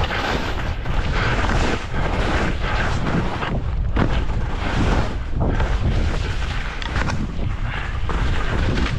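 Wind buffeting the microphone during a downhill ski run: a loud, rushing noise that keeps swelling and dipping.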